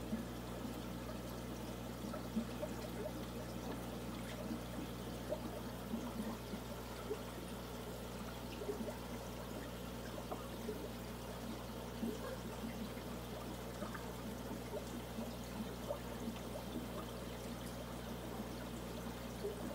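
Aquarium filter running: water trickling and bubbling continuously over a steady low hum.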